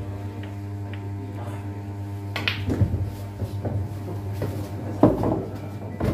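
Pool cue striking the cue ball about two and a half seconds in, followed by billiard balls clacking together and knocking on the cushions. The loudest ball knock comes about five seconds in. A steady low hum runs underneath.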